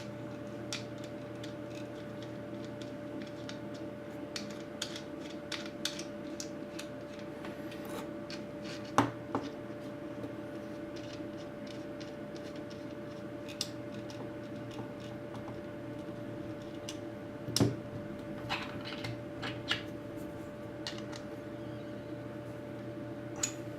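Small scattered clicks and taps of plastic and metal parts being handled as the rotary tool's nose cap is taken off and the flexible shaft attachment is screwed on. Two sharper clicks come about nine and eighteen seconds in, over a steady low hum.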